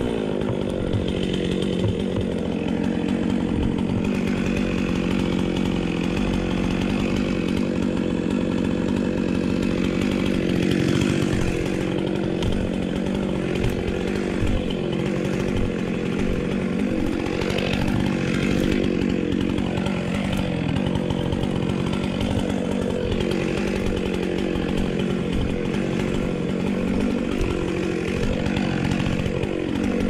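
Two-stroke chainsaw idling steadily after being revved down, its note wavering slightly.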